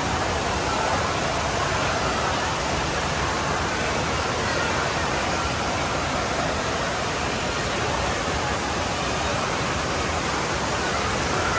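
Steady rush of falling and splashing water from water-park features, an even noise that holds at the same level throughout.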